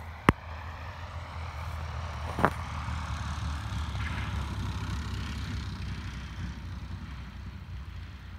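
Sonex OneX light aircraft's engine running at low power as it lands and rolls out, a steady rumble that swells and fades as it passes. A loud sharp click sounds just after the start, and a shorter sharp sound about two and a half seconds in.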